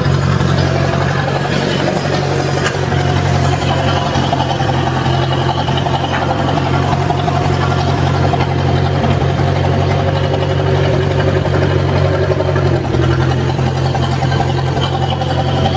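Old Massey Ferguson backhoe's engine running steadily at a constant speed, staying running well despite cloudy fuel in the tank.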